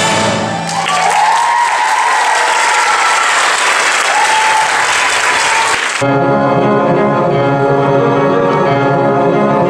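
Theatre audience applauding and cheering, with a few high whoops, as a dance number ends. About six seconds in, the applause cuts off suddenly and music with sustained, bell-like notes begins.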